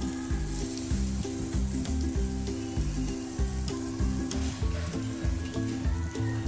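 Background music with a repeating pattern of low notes, over a steady sizzle of meat cooking on a tabletop yakiniku grill.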